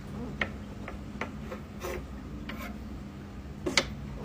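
Kitchen knife sawing through the firm, spongy flesh of a giant puffball mushroom: a dry rasping scrape with scattered small clicks, and a sharper click just before the end.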